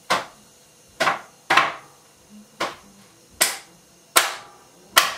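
Lid of a ready-meal tray being stabbed through in several places to vent it for the microwave: seven sharp pops, irregularly spaced less than a second apart, each fading quickly.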